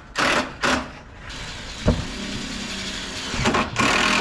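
Cordless drill driving roofing screws through sheet-metal roof panels into wooden stringers: short grinding bursts at the start and end, a sharp knock about two seconds in, and in between the drill running more steadily.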